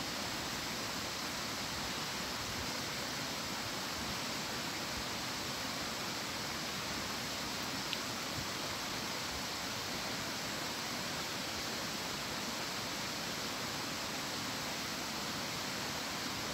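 Steady rushing of a creek, with a single faint click about eight seconds in.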